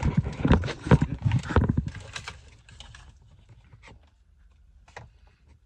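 Handling noise as the baby camera's power cord is pulled and worked: a quick run of knocks and rubbing for about two seconds, then a few faint clicks.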